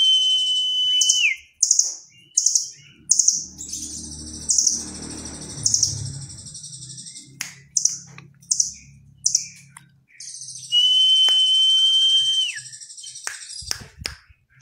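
Caged blue nuthatch (rambatan Doraemon) singing: high, rapid trilled chatter in repeated short bursts, with twice a long, steady whistle that drops in pitch at its end, once at the start and again about two-thirds of the way through.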